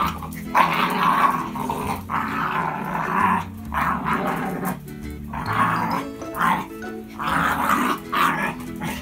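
An adult miniature schnauzer and a four-month-old miniature schnauzer puppy play-fighting, growling in rough short bursts one after another, over background music.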